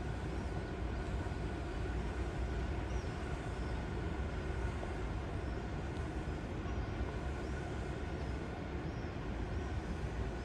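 Steady low rumble of outdoor urban background noise, with faint short high chirps now and then.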